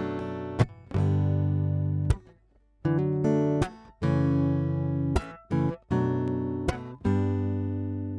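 Epiphone AJ-220S acoustic guitar, heard through its LR Baggs LB Pre pickup and preamp recorded direct, strumming a run of ringing chords. There is a short break just after two seconds in.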